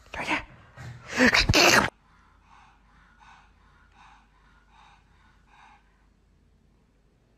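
Pug sneezing and snorting: two or three loud bursts of breath in the first two seconds, then a faint run of evenly spaced puffs that stops a little before the end.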